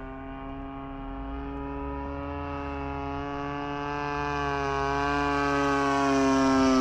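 Hangar 9 Ultra Stick RC airplane flying overhead: a steady motor-and-propeller drone that grows louder as the plane comes closer and is loudest near the end.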